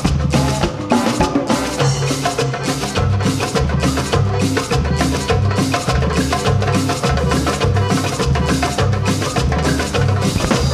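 Percussion ensemble playing live on congas, hand drums and a drum kit, in a steady, even rhythm of quick strikes over recurring low drum beats.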